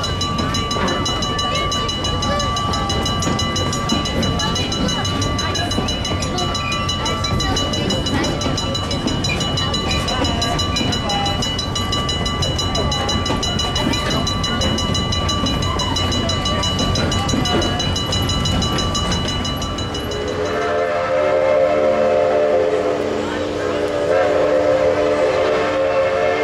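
A two-foot narrow-gauge steam train, built 1925, rolling along with a steady rumble and clatter, thin high tones ringing over it. About twenty seconds in, the locomotive's steam whistle sounds a chord of several tones in two blasts.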